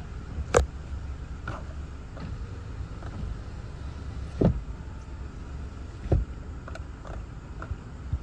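Strong storm wind buffeting a car, heard from inside the cabin as a steady low rumble. Three loud sharp knocks on the car come about half a second in, near the middle and about six seconds in, with fainter clicks between.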